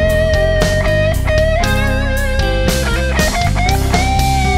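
Electric guitar solo on a Stratocaster-style guitar: long sustained lead notes, bent up and held with vibrato, over a rock band backing with a steady beat.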